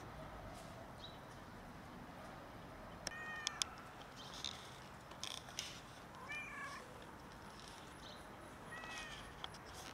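A domestic cat meows three short times, spaced a few seconds apart. A couple of sharp clicks come just after the first meow, and short bursts of noise fall between the first and second.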